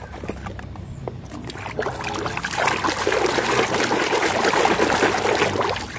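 Water pouring and splashing as a muddy toy is rinsed. It starts about two and a half seconds in, after a quieter stretch with a few small knocks, and lasts about three seconds.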